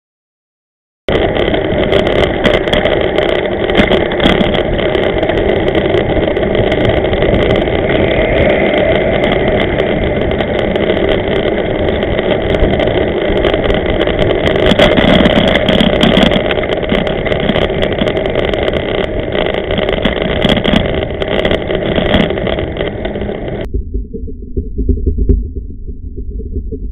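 Riding noise picked up by a camera mounted on a bicycle on a city street: a steady loud rush with frequent small clicks and rattles, starting about a second in. About three seconds before the end it changes to a muffled low rumble as the bike rolls onto a path of loose small stones.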